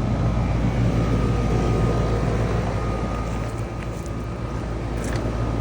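Grandaire air conditioner condensing unit running: a steady hum from its scroll compressor and condenser fan, with a faint steady whine over the rush of the fan.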